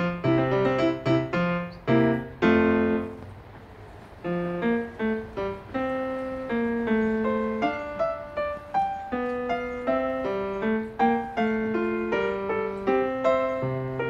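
Solo piano background music: a gentle melody of single notes over lower accompanying notes, with a chord struck about two seconds in and left to fade before the melody resumes.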